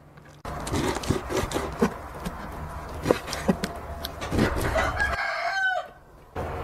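A rooster crowing once, one drawn-out call in the second half, over scattered knocks and clatter from work at the table.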